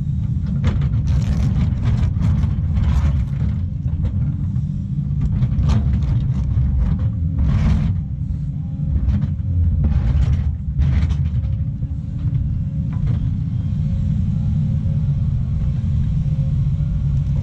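Heavy diesel earthmoving machine running under load, its steady low engine rumble broken by irregular scrapes and bangs of steel on solid rock, mostly in the first two-thirds.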